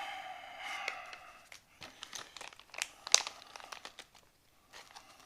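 Small metal pen-kit parts being handled and threaded together: scattered light clicks and crinkly rustles, the sharpest about three seconds in. A short, slightly falling tone comes first.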